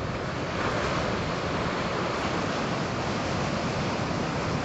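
Surf breaking on a shore, a steady rush of waves, with wind buffeting the microphone.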